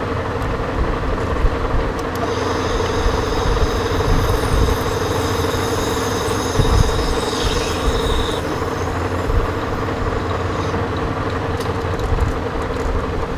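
Monarch Model K lathe running steadily, with a tool cutting the hole in the steel workpiece. A high whine from the cut comes in about two seconds in and stops after about eight seconds.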